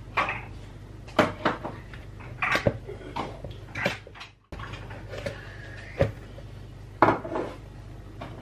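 A spoon knocking and scraping against a plastic mixing bowl as butter and sugar are creamed together, giving a string of irregular clunks and clinks.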